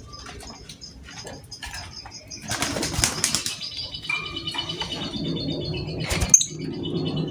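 Lovebird chirping and chattering in high, rapid notes, with a noisy flurry of wing flapping about three seconds in and a sharp flutter or knock near the end.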